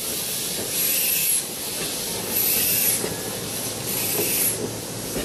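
1909 Porter steam locomotive pulling its passenger cars at slow speed, its steam hissing in regular bursts about once every second and a half.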